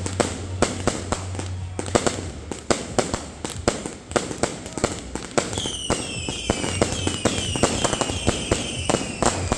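Fireworks going off in rapid, irregular bangs; about halfway through, several whistling fireworks join in, each whistle falling slowly in pitch as the bangs continue.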